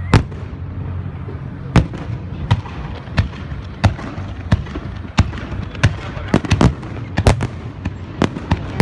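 Aerial fireworks going off: about fifteen sharp bangs at irregular intervals, several coming close together in the middle, over a continuous low rumble.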